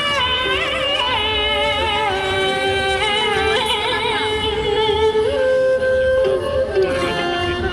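Traditional Vietnamese water puppet theatre music: a voice singing long, wavering held notes with sliding pitch over a continuous instrumental accompaniment.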